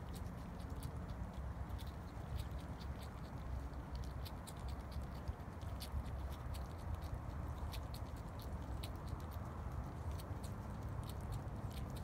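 Striped skunk eating from a pile of food on the ground: irregular small clicks and crunches of its chewing and foraging, over a steady low rumble.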